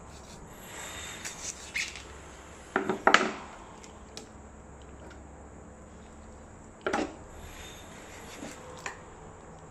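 Large kitchen knife chopping through a raw whole duck, the blade knocking hard against the bone and the board underneath. The knocks come in a loud cluster about three seconds in and a single one about seven seconds in, with lighter clicks between. The duck's bone is very hard, and cutting it is a struggle.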